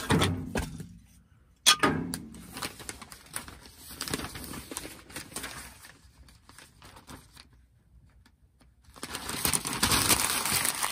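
Newspaper and glossy store flyers being crumpled by hand into balls of tinder for a wood stove: bursts of paper crinkling and rustling, with a sharp crunch at the start and another a couple of seconds in, a short lull, then steady crumpling from about nine seconds in.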